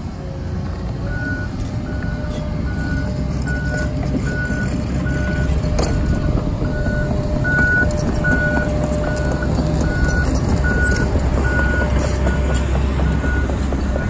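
Back-up alarm on heavy equipment beeping steadily about twice a second, starting about a second in, over the low rumble of a diesel excavator engine running.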